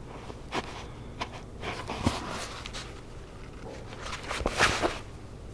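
Nylon dental floss being pulled through a leather knee patch and waxed cotton pants during hand whip-stitching, with the fabric rustling as it is handled: a few short rasps and rustles, the loudest cluster about four seconds in.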